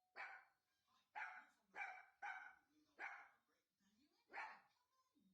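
A puppy barking six times, sharp single barks spaced about half a second to a second apart, set off by a doorbell chime from a TV.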